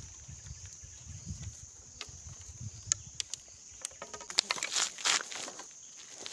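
Bamboo sticks clicking and knocking as a bamboo trap's trigger is handled, with dry leaves rustling about four seconds in. A steady high drone of insects runs underneath.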